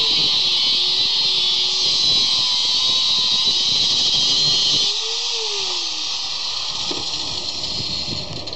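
Corded angle grinder cutting through a steel bolt: a loud steady hiss of the disc grinding metal, with the motor's whine sagging under load. About five seconds in the disc comes off the bolt and the grinder is switched off, its whine falling as it spins down and the hiss fading.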